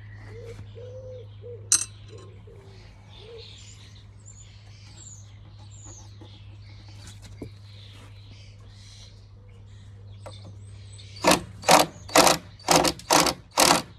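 A pigeon coos softly and small birds chirp faintly, with a single sharp click a little under two seconds in. Near the end come six loud, short mechanical rasps about half a second apart, typical of a power tool being pulsed on screws.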